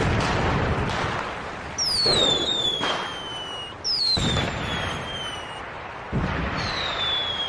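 Fireworks going off: a series of bursts, three of them with a high whistle that falls in pitch over a second or two.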